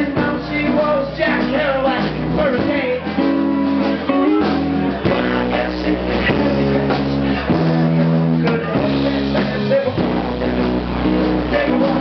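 Live blues-rock band playing electric guitar and drums, with an amplified harmonica lead played into a cupped microphone.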